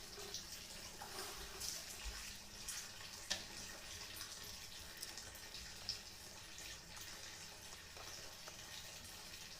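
Faint, wet eating sounds: chewing with scattered small mouth clicks and smacks, a sharper click about three seconds in and another near six seconds.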